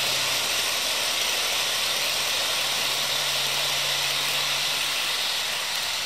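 HO scale model passenger train rolling along its track close by: a steady rushing hiss of the cars' metal wheels on the rails, with a low steady hum beneath it.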